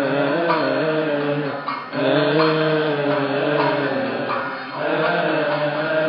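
Voices chanting a Coptic Orthodox liturgical hymn in unison: a slow, drawn-out melody that wavers on long held notes, broken briefly about two seconds in and again near five seconds.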